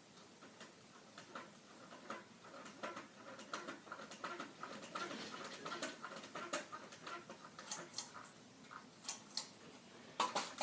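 Ceiling fan blades repeatedly clipping and brushing a balloon: an irregular run of light ticks and scuffs that grows busier after the first couple of seconds, with sharper clicks near the end.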